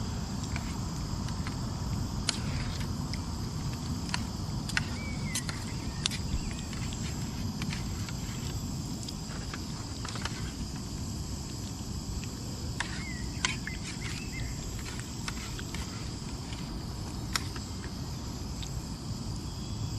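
Steady low rush of a camping gas stove burner heating a pan, under a steady high chirring of insects. A few short bird chirps come about five seconds in and again near the middle, with scattered faint clicks.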